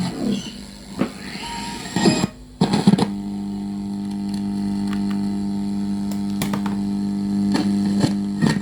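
Sony CFS-1110S cassette radio giving a few sharp clicks, then a steady low buzzing hum from its speaker that starts about three seconds in and cuts off near the end.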